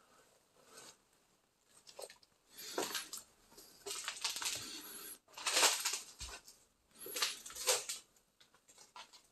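Scuffing footsteps and rustling over litter on a bare floor, in four noisy bursts of about a second each through the middle.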